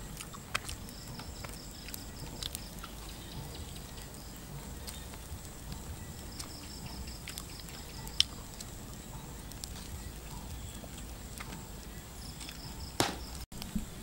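Wood campfire crackling with scattered small pops and one sharp pop about eight seconds in, with insects trilling in short runs in the background. A louder knock near the end.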